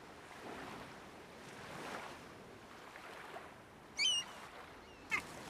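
Quiet dockside harbour ambience, a soft swelling wash of water lapping. Two short high chirps cut through about four seconds in and again about a second later.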